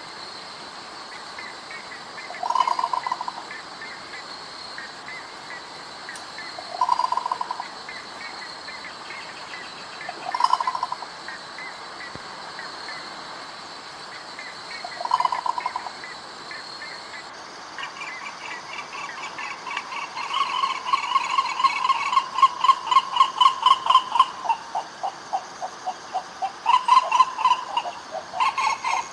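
Buff-necked ibis calls: short bursts of rapid, pulsed notes about every four seconds. A little past halfway a longer run of rapid calls lasts several seconds, and more bursts follow near the end.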